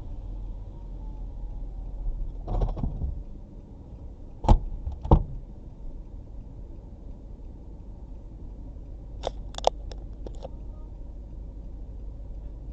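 Steady low road and engine rumble inside a moving car, with a dull knock early on, two sharp clicks about a second apart near the middle, and a quick run of clicks later.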